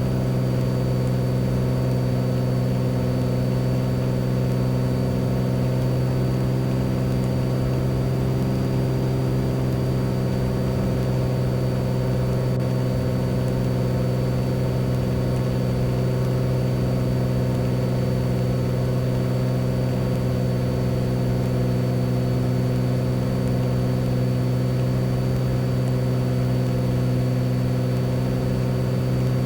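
Beechcraft Bonanza's piston engine and propeller droning steadily in the cockpit at a constant power setting on final approach. A faint, steady high whine runs alongside it.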